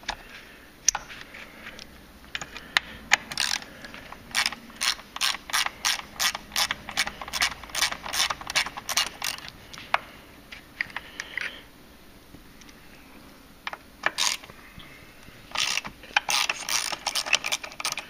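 Hand socket ratchet clicking in quick runs as bolts on a minivan's sliding door are backed out, with a pause of a few seconds midway before the clicking resumes.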